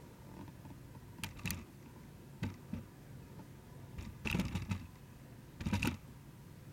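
A few scattered clicks and knocks, about a second or more apart, from equipment being handled in a small room. The loudest clusters come near the middle and near the end.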